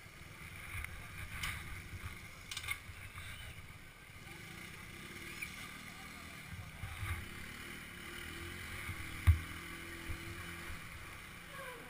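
Honda TRX 125 ATV's small single-cylinder engine running faintly as it drives through shallow river water, over steady rushing water and a low wind rumble on the microphone. A single sharp thump about nine seconds in.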